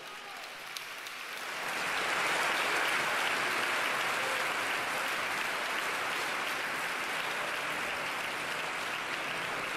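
Large audience applauding, building up over the first two seconds and then holding steady.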